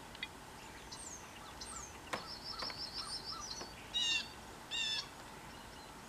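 Small birds calling in the trees: a few quick high chirps, a rapid trill around the middle, then two short harsh, buzzy calls, the loudest sounds, near the end.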